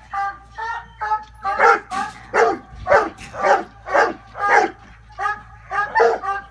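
Walker coonhound barking repeatedly at a live raccoon held in a cage, a steady string of short barks at about two a second, the hound baying at its quarry in training.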